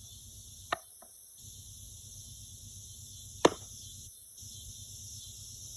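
A steady cicada chorus drones, with two sharp knocks of pitched metal washers landing: a lighter one under a second in and a louder one about three and a half seconds in.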